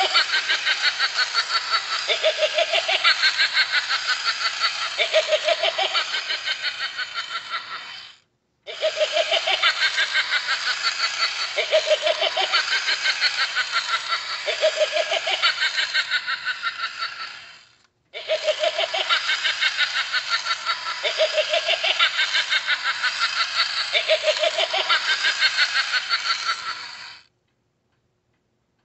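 Animated Halloween witch decoration playing its recorded cackling laugh. The same cackle of about nine seconds plays three times, with a short break between each, and stops shortly before the end.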